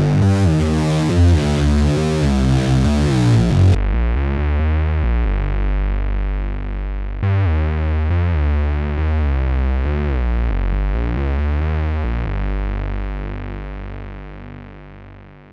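Korg Monologue synthesizer playing a repeating acid-style bass pattern through a Boss distortion pedal. About four seconds in, the harsh distorted top end cuts off suddenly; it comes back less bright around seven seconds, and the sound then fades down near the end.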